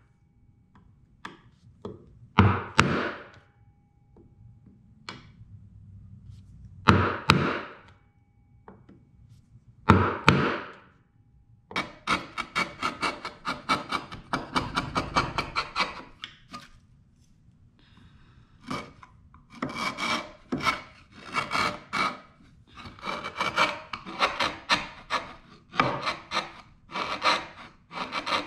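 Several sharp blows of a nylon-faced mallet driving a chisel into cherry to chop the walls of a stopped dado. From about twelve seconds in, the chisel is pushed by hand to pare out the dado, giving runs of rapid scraping, crackling strokes as chips lift from the wood.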